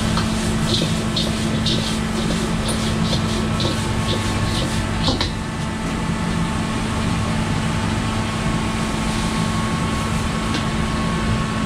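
Steady roar of a commercial gas wok range and kitchen extractor. Over it, in the first five seconds, comes a run of metal-ladle scrapes and sizzles as crab is stirred in the hot wok, ending with a sharp clank about five seconds in.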